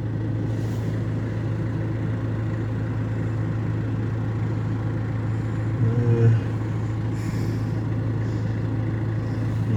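Farm tractor engine idling steadily with a low, even hum. About six seconds in, a brief higher-pitched sound rises over it.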